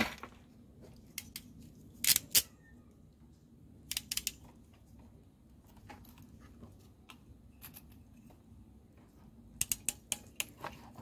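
Crimping pliers squeezing a blue insulated butt connector onto a red wire: sharp clicks in short clusters, about two seconds in, about four seconds in, and a quick run near the end.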